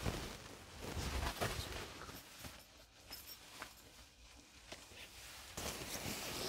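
Faint rustling and shuffling handling noise: a few soft scuffs in the first two seconds, quieter in the middle, then a denser rustle from about five and a half seconds in.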